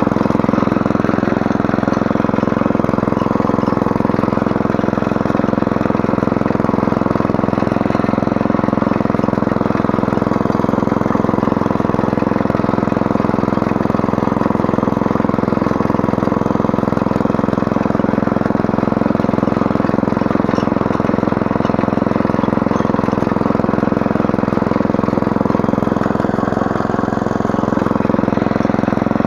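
Small engine of a walk-behind rotary tiller running steadily as its tines cultivate the soil between sugar beet rows.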